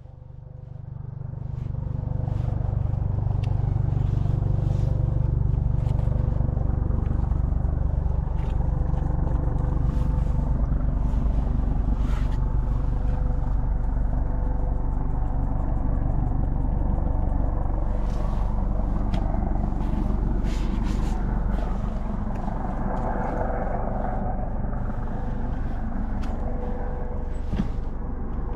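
A motor vehicle engine running steadily with a low rumble, fading in over the first couple of seconds, with scattered light clicks.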